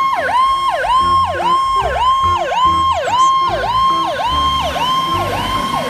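Emergency siren on a responding fire truck, in a fast yelp: the tone dips and climbs back about twice a second. A low throb comes and goes underneath, and the siren grows a little fainter near the end.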